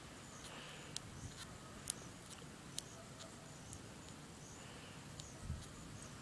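Faint, sparse clicks and rubbing of a rubber balloon being twisted by hand to build up pressure, against faint high chirping of insects.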